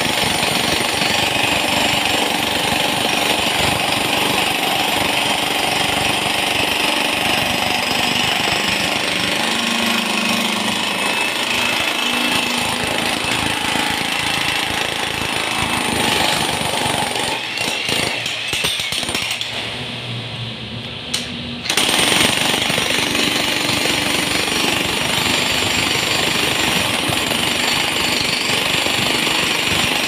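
Corded electric demolition hammer (jackhammer) breaking up a concrete floor slab, its chisel bit hammering rapidly and continuously. About two-thirds of the way through it eases off for a few seconds, then comes back at full strength.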